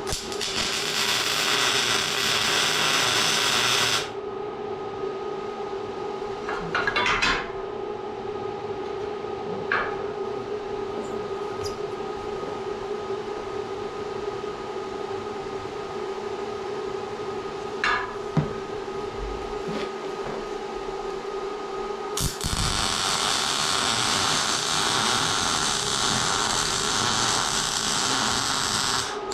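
MIG welder laying two tack welds on a steel airbag mount bracket: a crackling hiss for about four seconds at the start and again for about seven seconds near the end. A steady hum runs underneath, with a few light clicks between the welds.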